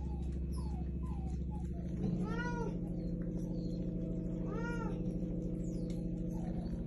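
Domestic cat meowing twice, each meow about half a second long and rising then falling in pitch, over a steady low hum.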